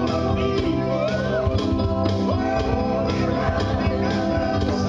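Live music: a man singing into a microphone over instrumental accompaniment.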